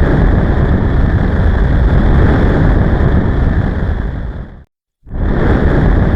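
Loud, steady rushing noise with no clear pitch, cutting out for a split second near the end and then starting again.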